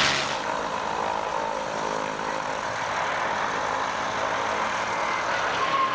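P-51 Mustang's supercharged Rolls-Royce Merlin V12 engine running at high power as the plane takes off and climbs: a steady engine drone with a faint whine that drops slightly in pitch.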